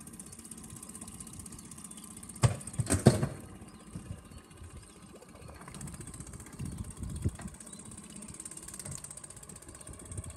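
Small outboard motor on an inflatable dinghy running at low speed while the dinghy pushes a chunk of floating ice. A cluster of loud, sharp knocks comes about two and a half to three seconds in.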